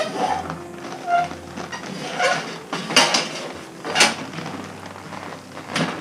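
Irregular knocks and clicks of a western saddle being handled and turned around, about six sharp ones spread through a few seconds.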